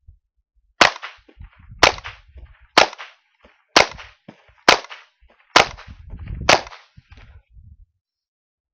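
Savage 64F semi-automatic .22 LR rifle firing seven shots in a steady string, about one a second.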